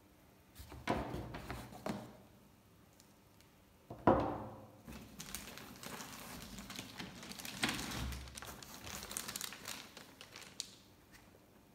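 Unboxing handling noise: a few knocks and a loud thud about four seconds in, then several seconds of a plastic packaging bag crinkling as a boxed network appliance in its bag is lifted out of its foam packing.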